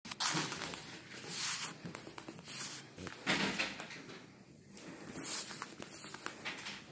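Rustling and rubbing noises in short bursts, about five or six of them, as a hand rubs a fluffy cat's fur close to the microphone.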